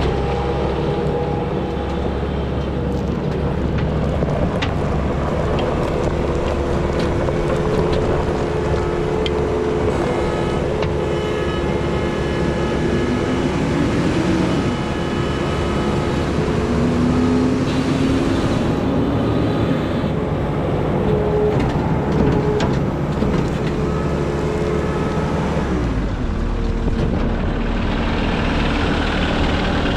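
Case SR270 skid steer's diesel engine running steadily, its pitch rising and falling a few times as the machine works.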